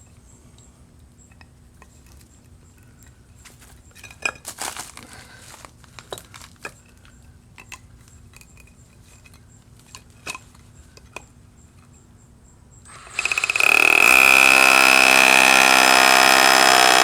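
Scattered small knocks and clicks, then about thirteen seconds in a Ridgid 18-volt cordless SDS Plus rotary hammer drill starts up. It drills loudly and steadily into a block with a 3/16-inch SDS Plus bit, with a steady high-pitched whine over the hammering.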